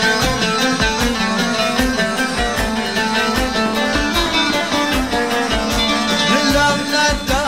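Instrumental Middle Eastern music: a plucked-string melody over a steady drum beat.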